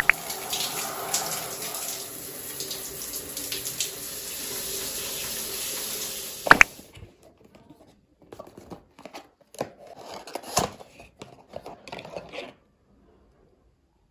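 Shower water running steadily, ending with a sharp click about six and a half seconds in. Then scattered rustles and light taps of a cardboard perfume box being opened and handled.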